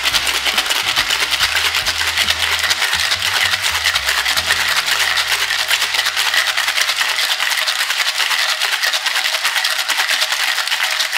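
Ice cubes rattling hard inside a stainless steel cocktail shaker being shaken fast and continuously, a dense steady clatter.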